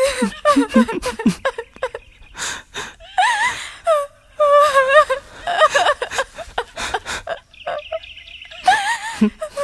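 A person weeping aloud: high, wavering wails that break off and start again, with sobs between them.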